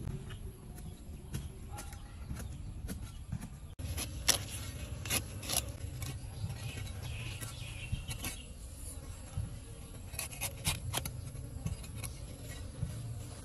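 Low buzzing of many bees, with scattered sharp clicks and taps throughout, the loudest a little after four seconds in; the sound drops out for a moment just before that.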